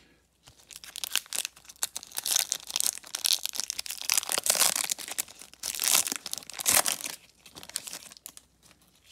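A trading-card pack's foil wrapper being torn open and crinkled by gloved hands: dense crinkling and tearing, loudest in the middle, dying away about a second before the end.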